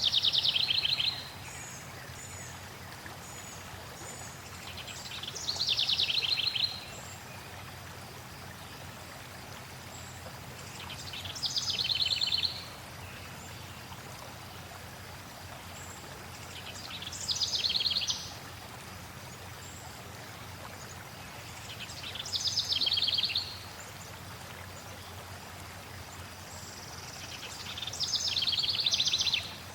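A songbird repeating the same short song six times, about every five and a half seconds: a fast high trill that swells louder and stops abruptly. Under it runs the steady rush of flowing water, with a few faint high chips early on from another bird.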